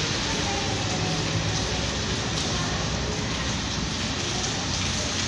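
Rain falling on a wet street: a steady, even hiss with a low rumble underneath.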